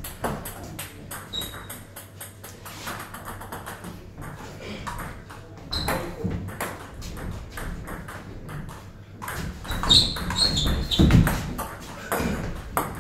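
Table tennis ball clicking off bats and tables in quick sharp knocks, from this table and a neighbouring one. A louder stretch of sound comes about ten seconds in.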